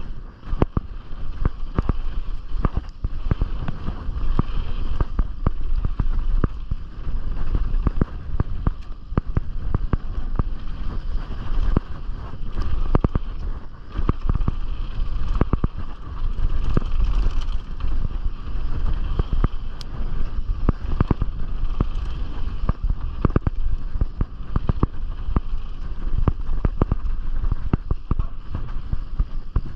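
Canyon Strive enduro mountain bike riding down a rough bike-park trail: a steady rumble of wind on the chest-mounted microphone with frequent, irregular clatter and knocks from the bike as it rides over the trail.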